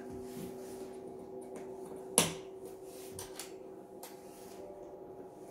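Objects being handled on a wooden work table: one sharp knock about two seconds in and a few lighter clicks, over a steady low hum.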